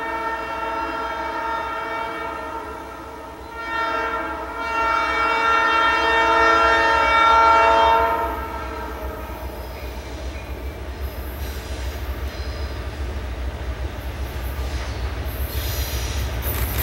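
Approaching freight train's diesel locomotive air horn sounding a chord in two blasts, one of about three seconds and then a louder, longer one. After the horn stops, the low rumble of the locomotive grows steadily louder as it draws near.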